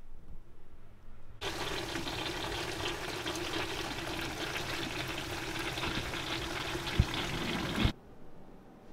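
Water running from a hose and splashing into a tank of water around an outboard's lower unit, a steady rush that starts about a second and a half in and cuts off abruptly near the end. There is a single sharp click about a second before it stops.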